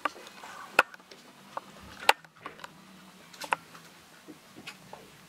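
Dogo Argentino puppy chewing and mouthing a plush toy: scattered soft clicks and rustles, with a few sharper clicks, the loudest about two seconds in.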